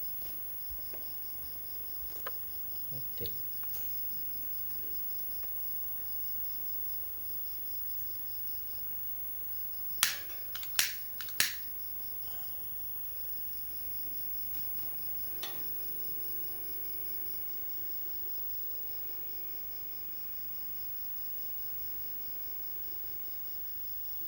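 Coleman 220K white-gas lantern burning with a steady hiss once lit, while crickets chirp in an even pulse. Three sharp clicks come close together about ten seconds in.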